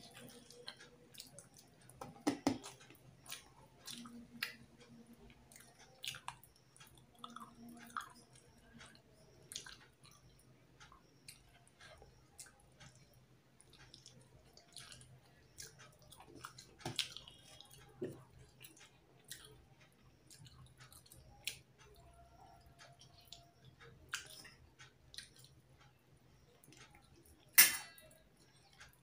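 Close-up chewing and mouth sounds of a person eating rice and fish curry by hand, with scattered small clicks and smacks as fingers mix the rice on a steel plate. A steady low hum runs underneath, and one sharp click near the end is the loudest sound.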